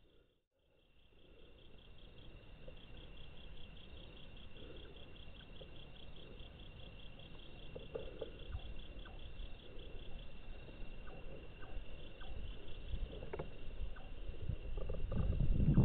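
Crickets chirping in a steady, fast pulse. A low rumbling noise grows louder toward the end, with a few soft knocks. The sound drops out briefly just after the start.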